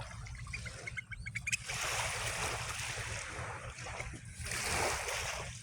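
A bird calls in a quick run of short notes about a second in, over the noisy wash of water that then swells for a few seconds.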